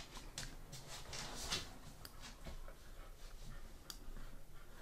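A few soft, scattered clicks from a computer mouse being worked, over a low steady hum.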